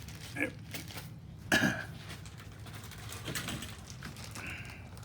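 Light mechanical handling noises of engine parts being moved and worked: scattered small clicks and rattles, with one louder, briefly ringing clink about a second and a half in, over a steady low hum.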